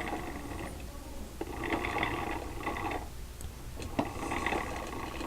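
Small clicking and rattling in three short spells, with a few sharp clicks: handling noise of a diecast metal model tractor being moved and turned.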